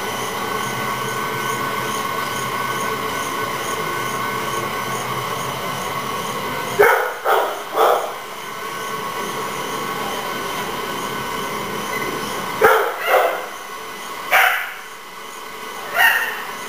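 Dog treadmill running with a steady motor whine and belt rumble. From about seven seconds in, a dog barks several times, singly and in pairs, over the machine.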